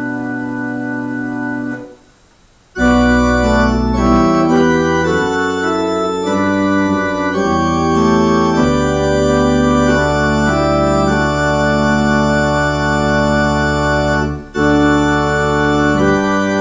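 Organ music: slow, held chords over a deep sustained bass line, with a pause of under a second about two seconds in and a very brief break between phrases near the end.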